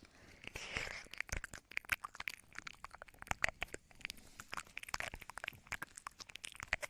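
Close-miked ASMR mouth sounds: rapid, irregular wet clicks and smacks of the lips and tongue, with a couple of soft breathy puffs mixed in.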